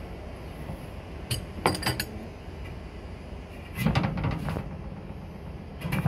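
Metal clinks and taps as a hammer strikes the hub of an air-conditioner condenser fan blade on the motor shaft, coming in short bunches of several strikes about a second and a half in, about four seconds in and again near the end.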